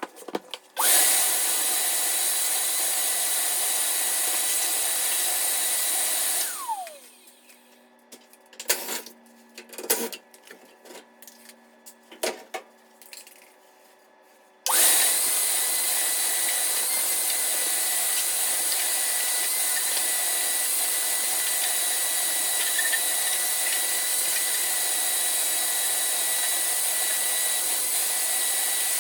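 High-speed electric motor running steadily with a whine, switched off about six seconds in and spinning down with a falling pitch. Scattered clicks and knocks follow. About fifteen seconds in it is switched on again and runs steadily until it spins down near the end.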